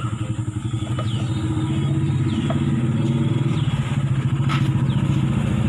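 A motorcycle engine running with a fast, even pulse, growing louder over the first couple of seconds and then holding steady, with a few light metallic clicks over it.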